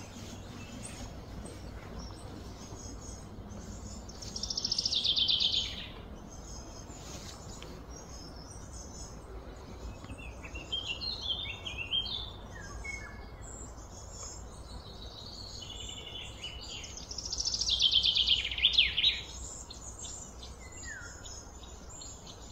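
Wild birds chirping and calling, with two louder fast trills, one about four seconds in and another around seventeen seconds, over a steady low background rumble.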